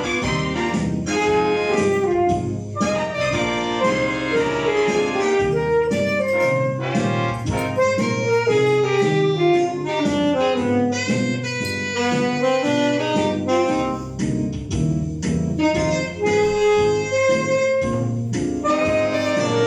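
Alto saxophone playing a fast study passage, quick runs of notes moving up and down without a break.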